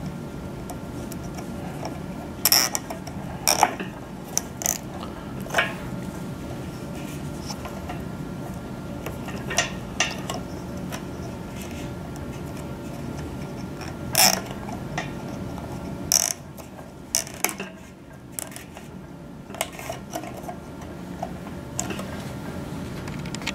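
Scattered sharp clicks and small clatters as zip ties are ratcheted tight around cables on a metal mounting bracket, over a steady low room hum.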